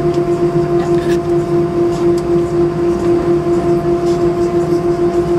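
Airbus A319's CFM56 jet engines at taxi idle, heard inside the cabin: a steady drone with a strong hum and a low rumble, pulsing quickly and evenly.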